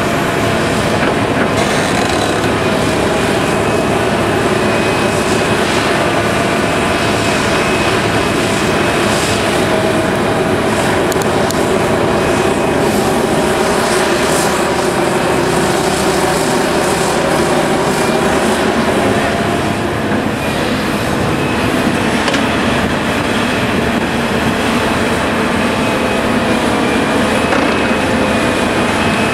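Heavy earthmoving machinery working, a Liebherr 974B hydraulic excavator loading articulated dump trucks: diesel engines running steadily under load, with steady whining tones on top.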